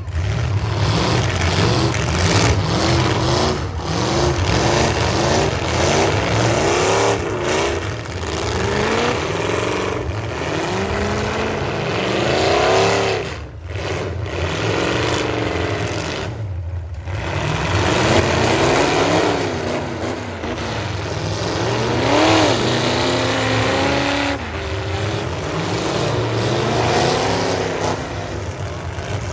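Several full-size pickup trucks' engines revving hard in a demolition derby, overlapping and rising and falling in pitch over and over above a steady low rumble.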